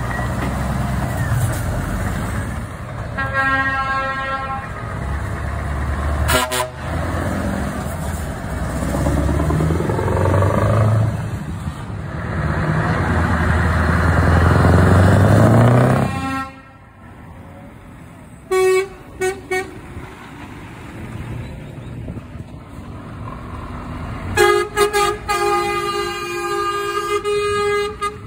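Scania trucks pulling away one after another, their diesel engines rising in pitch as they accelerate, with the rumble dropping away suddenly about 16 seconds in. Truck horns sound several times: a blast about 3 seconds in, three short toots around 18–19 seconds, and longer horn blasts near the end.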